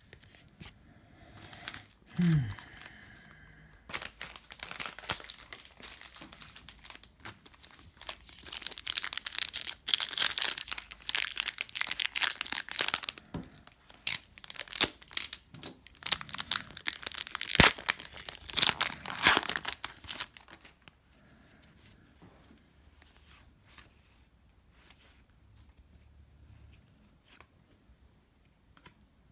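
Plastic trading card pack wrapper torn open and crinkled, a long stretch of dense crackling, with a sharp snap about two-thirds of the way through, then faint handling.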